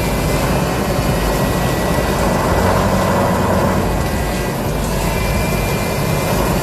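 A heavy vehicle's engine running steadily under a loud, even rush of noise.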